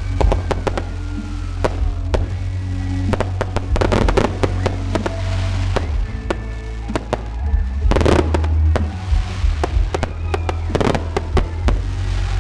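Fireworks display: many sharp bangs and crackling bursts over loud music with a heavy bass. A dense cluster of crackles comes about eight seconds in.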